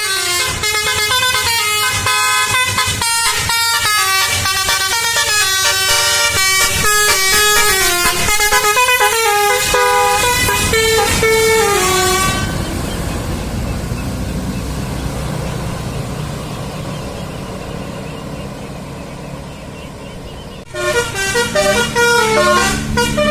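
A bus's telolet horn, a multi-tone air horn, plays a quick melody of stepping notes for about twelve seconds. A stretch of low rumbling vehicle noise follows and slowly fades, then the horn tune starts again suddenly near the end.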